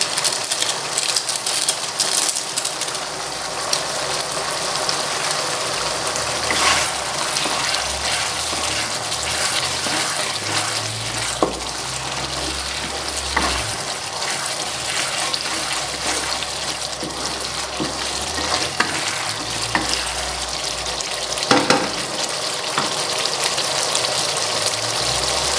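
Curry spice paste frying and sizzling in oil in a non-stick pan, stirred with a wooden spatula that knocks and scrapes against the pan a few times.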